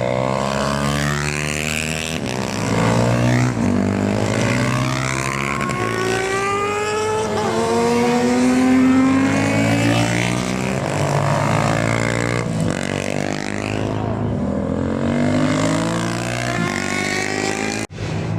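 Racing motorcycles at full throttle passing one after another, their engines climbing in pitch through the gears and dropping on each shift, several machines overlapping. A sudden brief break near the end.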